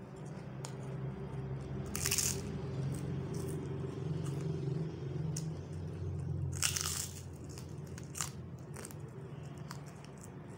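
Biting and crunching of a puffed prawn cracker (prawn chip) held at the mouth: two loud crisp crunches, about two seconds and about seven seconds in, with smaller crackles and chewing between them. A low hum runs underneath and fades out about three-quarters of the way through.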